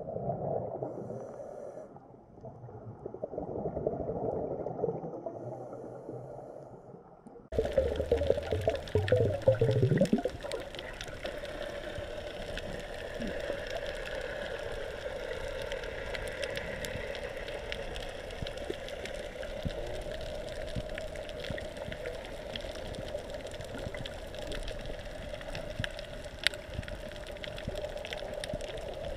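Underwater ambience picked up by a camera under water on a coral reef: a steady, muffled water noise with scattered faint clicks. About seven and a half seconds in, the sound changes abruptly to a fuller, hissier noise, with a low rumble for a couple of seconds.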